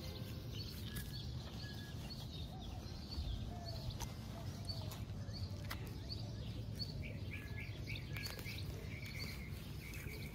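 Small birds chirping at intervals while a hand digger scrapes and cuts into grassy soil, with a few faint knocks, over a low steady rumble.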